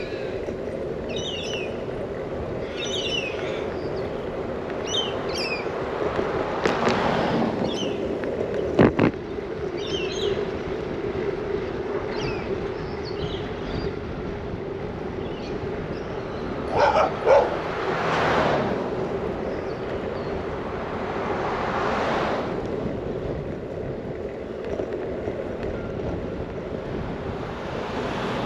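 Steady rolling noise of a bicycle ridden on an asphalt street, with birds chirping through the first ten seconds and a few cars passing. Two sharp knocks come about nine seconds in, and a dog barks twice about seventeen seconds in.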